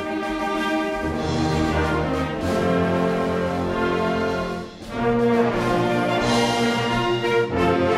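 Youth wind band playing a brass-led piece in sustained chords, with a brief drop in loudness about five seconds in before the full band comes back.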